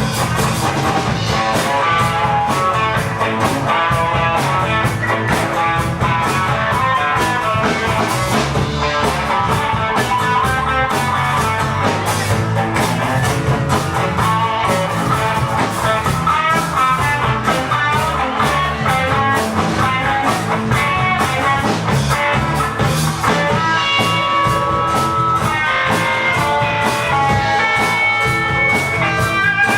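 Live blues-rock band playing an instrumental break: a guitar plays a lead line over bass and a drum kit.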